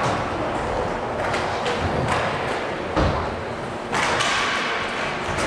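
Inline hockey play at the goal mouth: a steady clatter of skates and sticks on a plastic sport-court floor, with one heavy thump about three seconds in.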